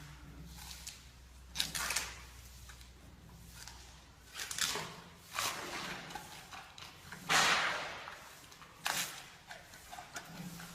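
Giant panda cracking and crunching bamboo stalks: about five sharp snaps a second or so apart, the loudest about seven seconds in.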